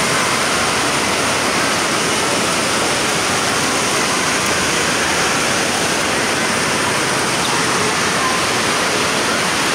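Steady rush of water from an indoor water park's pools and water features: one constant, even noise with faint distant voices in it.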